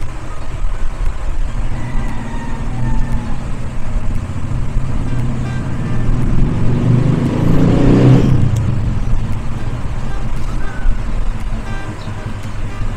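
Low motor-vehicle engine rumble, swelling loud about eight seconds in and then falling away, as a vehicle passes.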